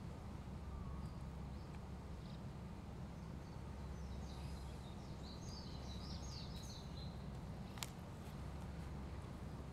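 Outdoor ambience: a steady low background rumble, with small birds chirping in a quick run of short high calls from about four to seven seconds in. A single sharp click comes near the end.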